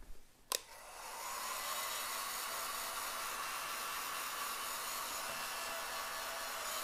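Bosch PHG 500-2 hot-air gun switched on with a click about half a second in. Its fan spins up with a faint rising whine, then it blows with a steady rush as it shrinks heat-shrink tubing over a soldered wire joint.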